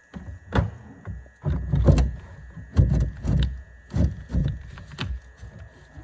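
An irregular run of about eight heavy knocks and clunks over several seconds, the loudest clustered just under two seconds in and again about three seconds in.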